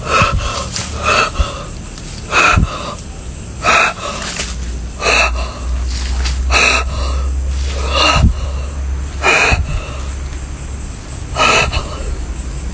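A man breathing hard through the mouth, a sharp gasping breath roughly every second and a half, over a low rumble.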